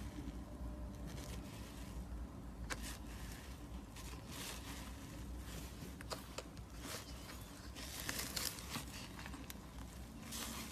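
Slime being handled, with scattered sharp clicks and pops and short bursts of sticky crackling, the longest about eight seconds in.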